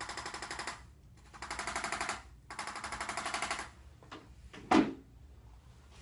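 Handheld electric percussion adjusting instrument firing three bursts of rapid taps, about a dozen a second, each burst about a second long. About a second before the end comes one loud thump, the loudest sound.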